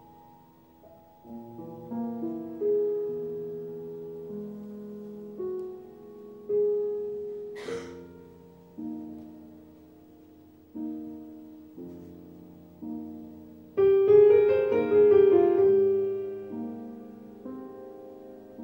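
Slow, sparse piano music: single notes and chords struck one after another and left to ring and overlap, with a louder, fuller chord about fourteen seconds in.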